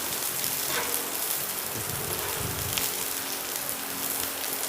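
Sliced long beans sizzling steadily in hot oil in a wok as they wilt, a fine, even crackle with scattered small pops.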